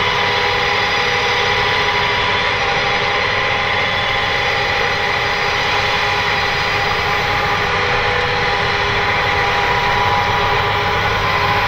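Massey Ferguson 7718 S tractor's six-cylinder 6.6-litre AGCO Power diesel running steadily under load, driving an Amazone KE403 rotary power harrow working the soil. A constant, even drone with steady high tones, no change in pace.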